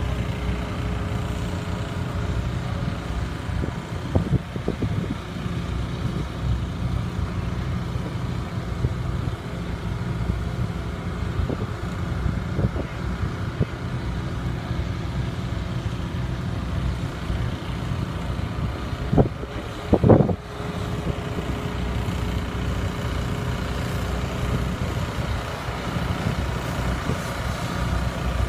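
Boat motor running steadily with a low drone. A few knocks come near the start and two-thirds of the way through, the loudest about two-thirds through.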